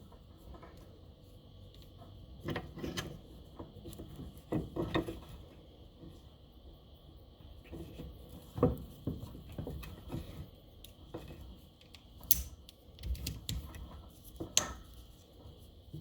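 Scattered clicks and knocks of tools and metal fork parts being handled, a few of them sharp, over a faint steady high hum.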